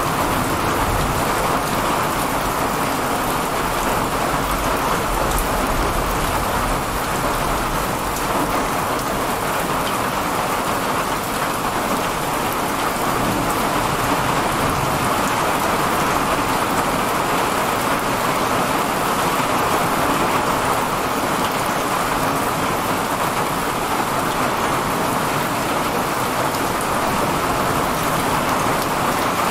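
Heavy, steady rain of a summer thunderstorm falling without a break. A low rumble of thunder dies away in the first second, and another faint rumble comes around seven seconds in.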